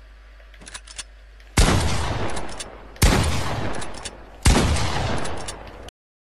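Three loud gunshot blasts about a second and a half apart, each followed by a long rumbling tail, after a few light clicks. The sound cuts off suddenly near the end.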